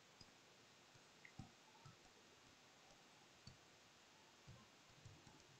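Near silence, with a few faint clicks scattered through: a stylus tapping on the glass of an interactive display board while a word is handwritten.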